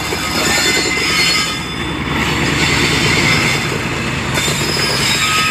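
Freight train's wagons rolling past close by: a steady rumble and rapid clatter of steel wheels on the rails, with thin high-pitched wheel squeal over it.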